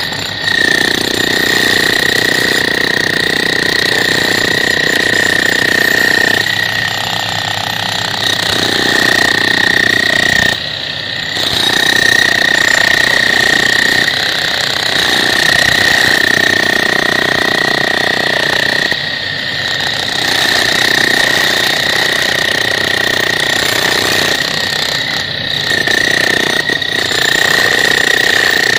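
Two electric demolition hammers chiselling concrete: continuous rapid hammering with a steady high whine, easing off briefly a few times as a tool lets up.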